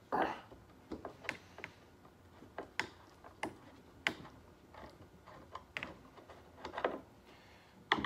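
Light, irregular clicks and ticks of a screwdriver working a small ground screw out of an electric motor's metal housing, with slight handling of the motor.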